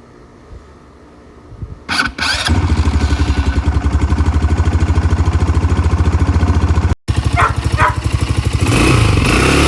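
Four-wheeler (ATV) engine starting about two seconds in, then running with an even, pulsing beat. The sound breaks off for an instant near seven seconds and runs louder near the end.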